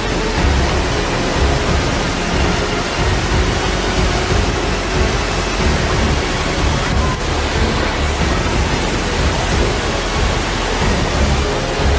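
Debris flow of muddy water and boulders rushing down a gully: a loud, steady rushing noise with a deep, churning rumble underneath.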